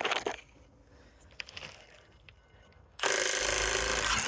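Impact wrench hammering in one burst of about a second and a half, starting about three seconds in.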